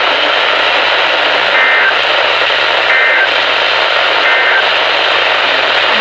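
Loud, steady radio static hiss from a weather radio receiver with no broadcast audio, broken by three short high beeps about a second and a half apart.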